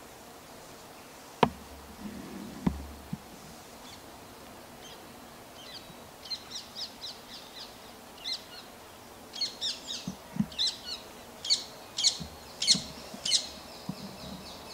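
A small songbird singing: runs of quick high chirps repeating from about six seconds in, over a faint outdoor background. A few sharp knocks come in the first three seconds.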